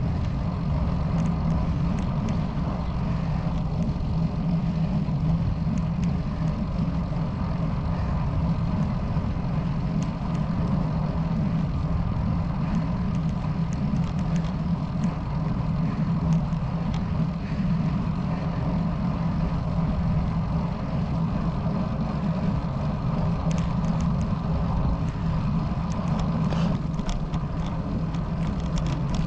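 Road bicycle riding on asphalt: wind rushing over the handlebar camera's microphone with the steady hum of the tyres on the road. Near the end a few short clicks and rattles come through as the surface turns rough and cracked.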